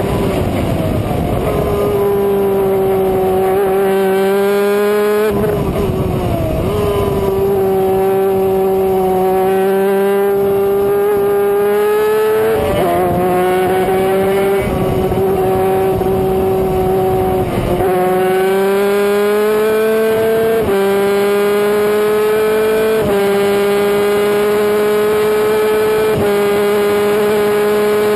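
250cc superkart's two-stroke engine running at high revs, heard from the kart itself, its pitch dipping and climbing back several times through the laps. Low rushing noise comes and goes under the engine.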